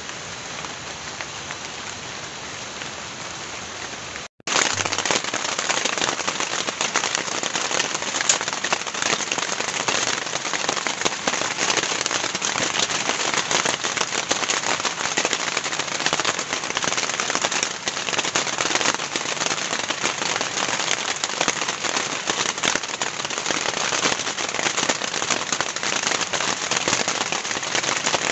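Heavy rain falling steadily. A little over four seconds in, it cuts out for an instant and comes back louder, with a dense, sharp patter of drops.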